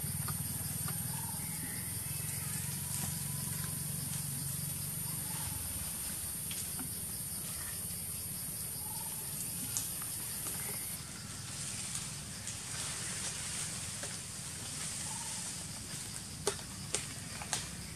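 Outdoor forest ambience: a steady high hiss that stops suddenly about eleven seconds in, over a low hum, with a few faint short animal calls and several sharp clicks near the end.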